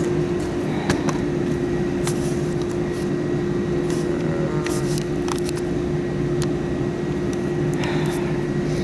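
Steady machine hum holding one constant tone, with scattered sharp clicks and taps.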